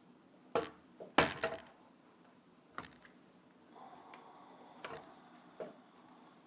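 Scattered sharp clicks and knocks of a laptop's plastic case and small hard parts being handled on a work surface, a quick cluster of them about a second in being the loudest.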